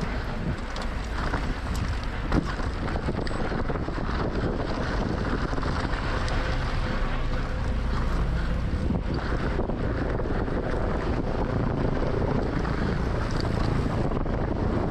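Wind buffeting the microphone of a mountain biker's camera on a fast enduro descent. Steady rushing noise from the tyres on the trail runs through it, with frequent small clicks and rattles and one sharper knock about two and a half seconds in.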